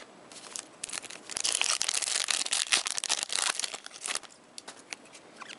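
Foil trading-card pack wrapper crinkling and tearing for a couple of seconds, with light clicks of cards being handled before and after.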